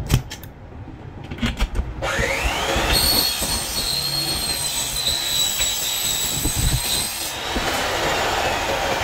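Electric drill spinning up about two seconds in, then running with a steady high whine as it bores through the aluminum screen frame and its corner bracket for a rivet. A few light clicks come before it starts, and the whine gives way to a rougher hiss near the end.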